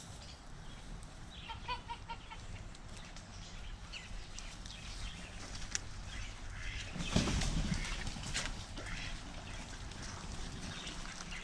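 Farm poultry, chickens and ducks, giving scattered short calls, with a louder rustling noise about seven seconds in.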